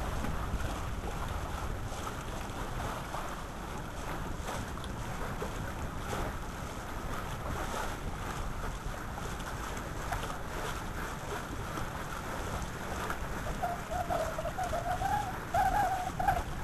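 Wind buffeting the microphone and water rushing along the hull of a Corsair trimaran sailing at speed. The low wind rumble is strongest in the first few seconds, and a faint wavering tone comes in near the end.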